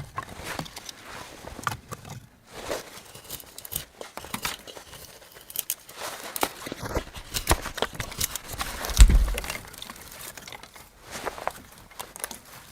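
Irregular rustling and crinkling with scattered short clicks, and one heavy thump about nine seconds in.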